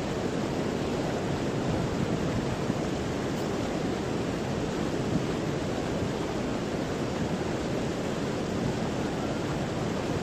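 Fast, churning river water rushing past a concrete bank: a steady, even wash of noise.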